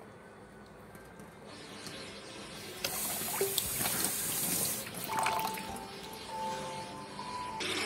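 Hands swishing and squeezing pieces of seafood in a bowl of water in a steel sink. Tap water rushes into the bowl for about two seconds in the middle, and a few held music notes come in over the last part.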